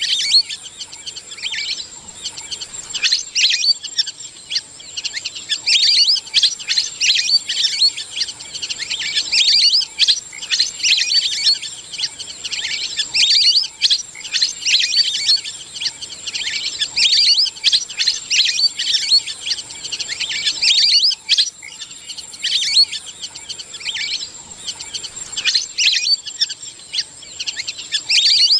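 Lesser whistling ducks giving their flock-gathering calls: rapid, high whistled chirps in dense bursts every second or two, over a steady high-pitched tone.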